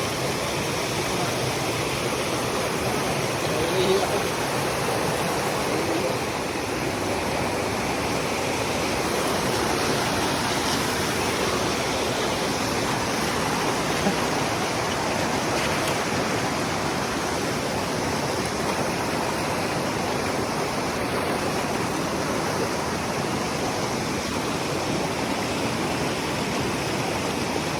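Steady rush of a mountain stream and waterfall running over rocks.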